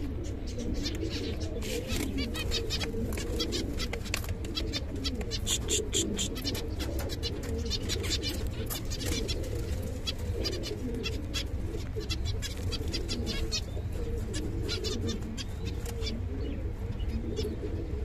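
Pigeons cooing continuously in a low, wavering murmur, with a dense patter of short, high chirps and clicks over it from finches calling and fluttering, busiest around the middle.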